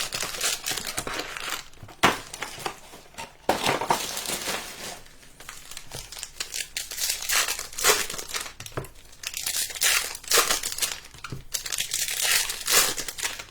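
Plastic and foil trading-card packaging crinkling and tearing as it is handled and opened, with sharp crackles about two and three and a half seconds in.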